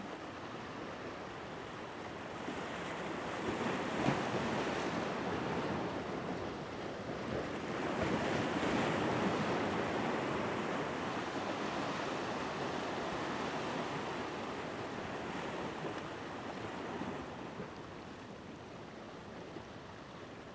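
Ocean surf washing and breaking against the jetty's rocks. It swells a few seconds in, is loudest around the middle, then eases off.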